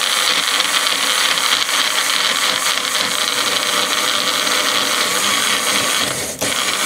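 Magic Bullet personal blender running steadily, its blades puréeing a liquid mixture of fried vegetables, cream and water; it stops at the very end.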